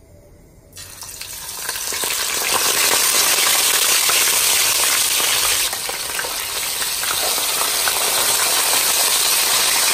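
Whole fish going into hot oil in a wok: the oil starts sizzling about a second in and builds to a loud, steady sizzle with crackling spatters as the fish fry.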